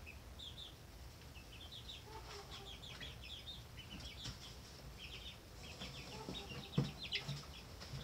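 Four-week-old chicks peeping: quick runs of short, high chirps. Near the end come a few low thumps.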